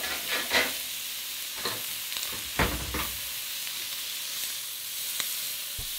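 Lamb saddle chops sizzling on a hot ridged grill pan, a steady hiss. Several short clicks and knocks from metal tongs on the pan break through it, the loudest about two and a half seconds in.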